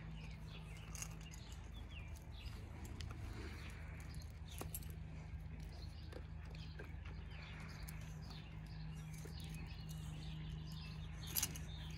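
Norwich terrier gnawing a pork shoulder bone: scattered faint clicks and scrapes of teeth on bone, with one sharper click near the end. Birds chirp in the background over a steady low hum.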